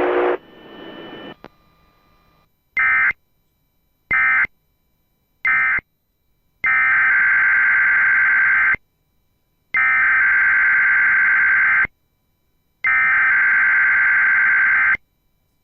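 Emergency Alert System SAME digital data bursts, harsh screeching buzzes: three short bursts mark the end of one alert, then three longer bursts of about two seconds each carry the header of the next alert.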